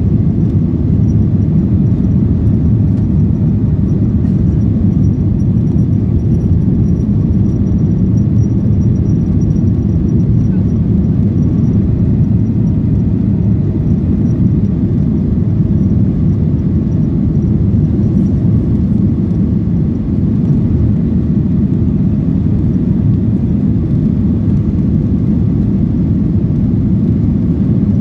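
Steady low rumble inside the cabin of a Boeing 737-900 climbing after takeoff: its CFM56-7B turbofan engines and the rush of air over the fuselage, unchanging throughout.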